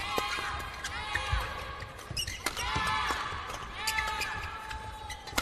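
Badminton doubles rally: a string of sharp racket hits on the shuttlecock, with players' shoes squeaking in short gliding squeals on the court mat.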